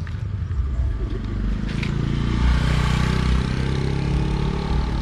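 Two small motorcycles riding up the road and passing close by, their engine sound swelling to its loudest a couple of seconds in and staying up after that.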